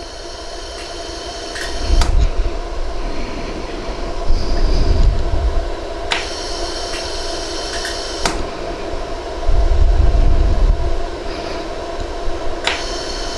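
iWeld jewelry laser welder running with a steady hum, its pulses firing as sharp clicks every second or few while 36-gauge white gold wire is fused onto a ring's prongs. Three stretches of low rumble are the loudest parts.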